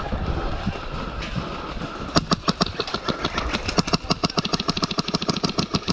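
Airsoft guns firing on full auto: a fast, even rattle of sharp shots that starts about two seconds in and keeps going.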